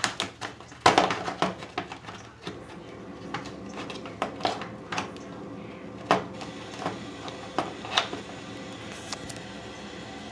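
Scattered clicks and knocks of tools and plastic parts being handled, about a dozen over the stretch, the loudest about a second in, over a faint steady hum.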